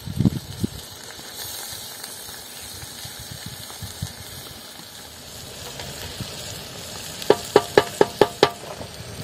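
Hot oil in a metal pot over embers sizzling steadily as drained rice is tipped in on top of frying potato slices. Near the end, a quick run of about six ringing knocks, about four a second, as a wooden spatula is tapped against the metal pot.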